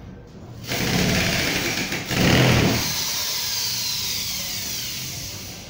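Corded electric drill running at full speed against a wooden wall bracket, boring into the wall. It is loudest about two seconds in, then the motor's whine falls steadily as it winds down.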